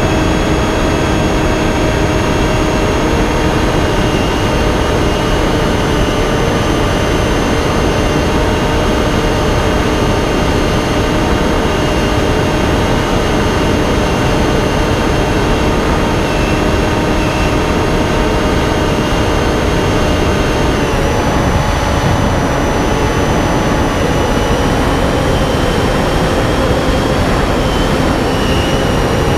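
Electric motor and propeller of a Finwing Penguin FPV plane in flight, picked up by the onboard camera: a steady whine over loud rushing wind noise, the pitch dipping slightly about three-quarters of the way through.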